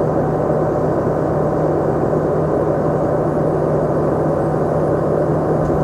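Cummins diesel engine of a Ford forestry bucket truck running steadily at idle, with a constant low hum.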